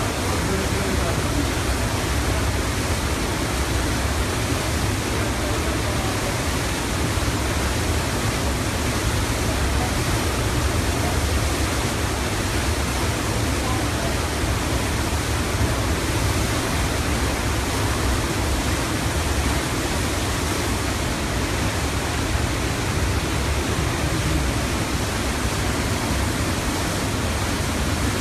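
The Tanaro river in flood, a torrent of water rushing over its banks: a loud, steady rush with no let-up.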